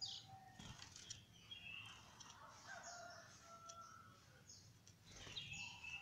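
Domestic canaries in a breeding cage chirping faintly: scattered short high cheeps and thin whistled notes, with a soft flurry of movement about five seconds in.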